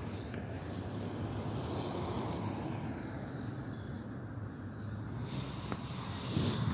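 Outdoor street noise: a steady low rumble of wind on the microphone and traffic, with a brief louder bump near the end.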